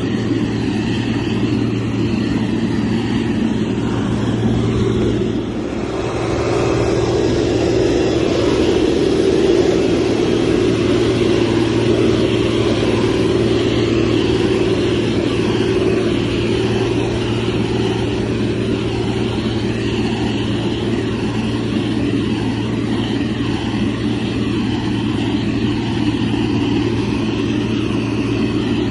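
Heavy construction machine's diesel engine running steadily, with a short dip about five seconds in before it runs a little louder again.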